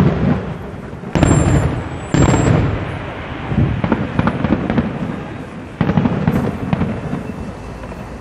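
Aerial firework shells bursting in a display: a string of sudden loud bangs, at the start, just over a second in, about two seconds in and near six seconds in, each rolling on in a low rumble for a second or more.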